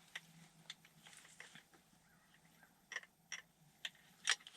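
A few faint, scattered clicks and taps over a quiet background, the loudest a little after four seconds in.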